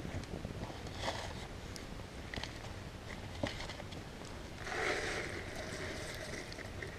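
Wood campfire crackling, with scattered sharp pops. About four and a half seconds in, a louder hiss with a steady tone comes in and holds.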